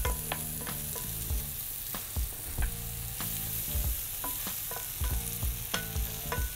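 Chopped mushrooms and garlic sizzling in oil in a non-stick frying pan, stirred with a wooden spoon that taps and scrapes against the pan a few times a second.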